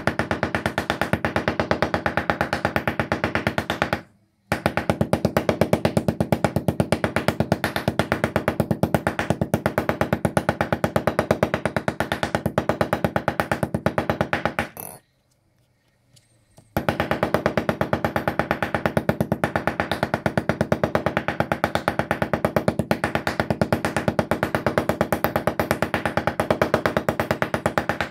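Meat tenderizer mallet pounding a thin pork slice on a plastic cutting board: rapid, steady strikes that stop briefly twice.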